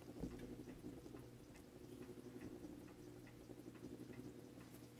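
Near silence: room tone with a faint steady hum and a few faint, scattered small ticks.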